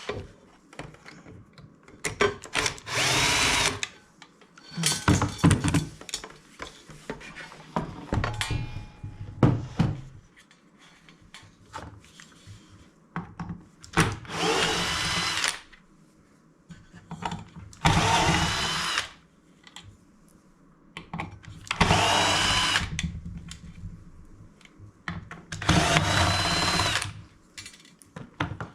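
Electric drill-driver run in five short bursts, each spinning up to a steady whine, loosening fasteners while the chip extractor is taken apart. Metal clinks and knocks come between the first and second bursts.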